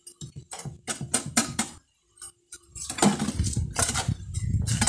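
Small metal hand trowel scraping and stirring a sand-and-cement mortar mix against the sides of a plastic tub. There is a run of quick strokes, then about three seconds in the mixing turns louder and more continuous.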